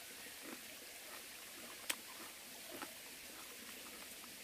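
Faint mouth sounds of someone chewing a bite of crisp Korean melon (chamoe): a few soft crunches and clicks, one sharper click about two seconds in, over a steady faint hiss.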